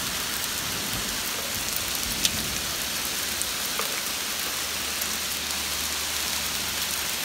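Rain mixed with small hail pelting the ground: a steady hiss dotted with sharp ticks of hailstones striking, the loudest a single clack a little over two seconds in.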